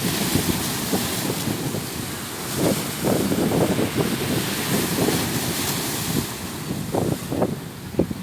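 Sea surf washing in with wind rumbling on the microphone; the surf swells louder about three seconds in.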